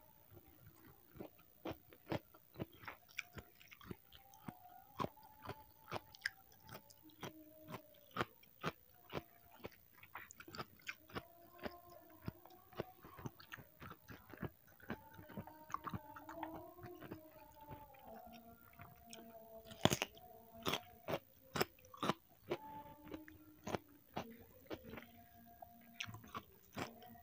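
Close-miked chewing of a mouthful of rice with sambal goreng pete eaten by hand: wet mouth sounds and a steady run of sharp lip smacks and clicks, several a second. The loudest is a sharp crack about twenty seconds in.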